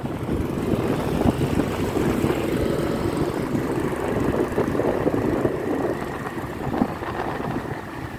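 Motorbike riding along the road: engine and road noise with wind rushing over the microphone.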